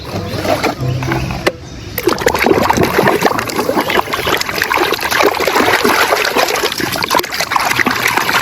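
Water splashing and trickling as a muddy toy is washed by hand in water, picking up about two seconds in and going on busily to the end.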